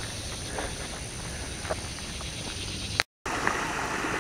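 Faint steady outdoor background with a few light ticks, then, after a sudden cut about three seconds in, a rain-swollen creek rushing, with water gushing from its bank.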